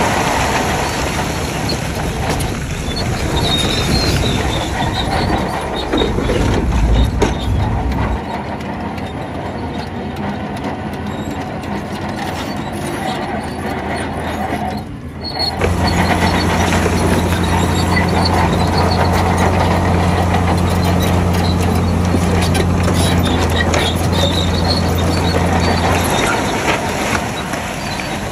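Heavy diesel earthmoving machinery at work: rough engine noise with metallic rattles. About halfway through, a steady low engine drone sets in and drops away shortly before the end.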